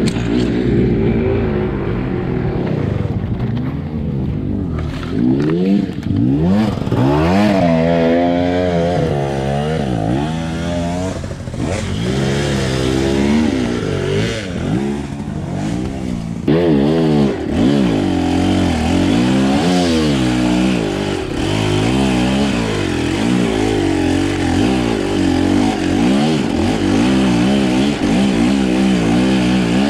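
Two-stroke enduro dirt bike engine revving up and easing off again and again as the throttle is worked over rough trail, with a few clattering knocks from the bike.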